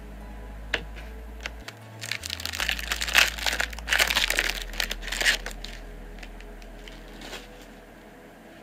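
Trading card pack wrapper being torn open and crinkled by hand, a dense crackling for a few seconds in the middle, with a few sharp clicks before and after.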